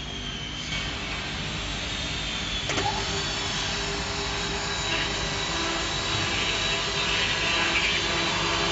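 Motors of a uPVC lock-hole milling machine running with a steady whine, growing gradually louder, with one sharp click about three seconds in.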